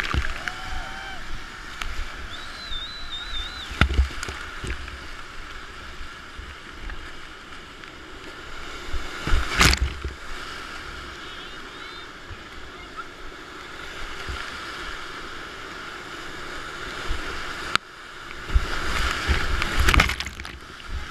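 Whitewater rapids rushing around a kayak, with paddle strokes and splashes; a loud splash or wave hit about ten seconds in and another burst of splashing near the end.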